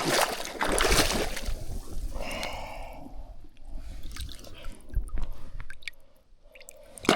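Water splashing and dripping, with knocks and handling noise close to the microphone.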